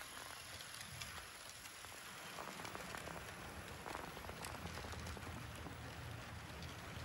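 HO scale model freight train running on sectional track: a faint, steady light clatter of the wheels on the rails with a low motor hum.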